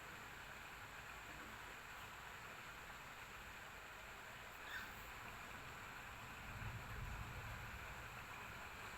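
Steady, faint rain hiss, with a low rumble of distant thunder swelling from about six and a half seconds in. There is a brief high squeak just before the five-second mark.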